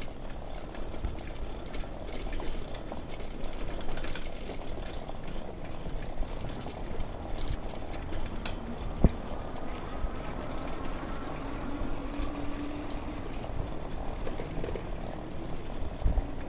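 Bicycle rolling over a brick-paved street: steady tyre rumble with light rattling from the bike, and one sharp click about nine seconds in.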